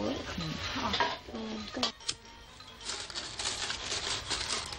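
A cigarette being lit: a quick run of sharp clicks and scrapes, starting about three seconds in.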